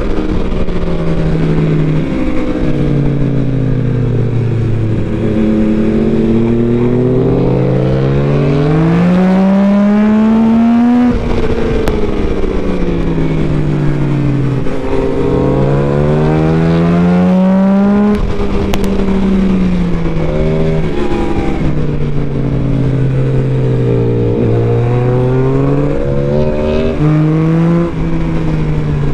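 Yamaha MT-09 SP's three-cylinder engine heard from the saddle, revs climbing on the throttle and falling away as it rolls off into bends, with a few sudden drops in pitch at gear changes. A steady rush of wind runs underneath.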